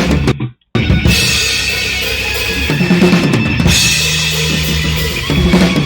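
A band playing, with a loud drum kit of bass drum, snare and cymbals over sustained bass notes; the music drops out to silence for a moment about half a second in, then comes straight back.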